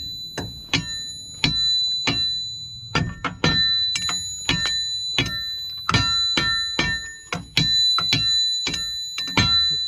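Hammer blows on steel, about two to three a second, each strike clanging with a high ringing note.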